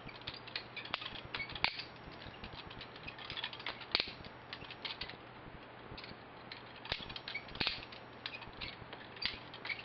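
Balisong butterfly knife being spun around a finger and caught: its handles clicking and clacking against the blade and pins in irregular sharp metallic clicks, with a few louder clacks when the handles snap together or ricochet.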